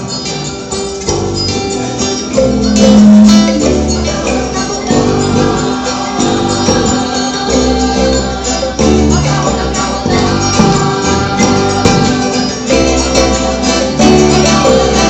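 Music: voices singing over plucked guitar and a tambourine.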